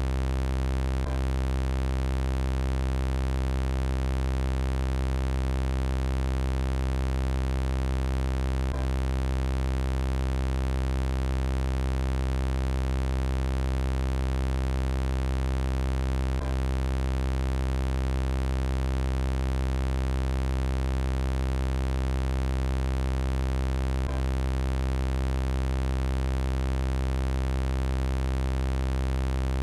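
Steady synthesized electronic drone at one unchanging pitch, a dense buzzing chord of many tones, with a faint click roughly every seven and a half seconds where the looped sound effect repeats.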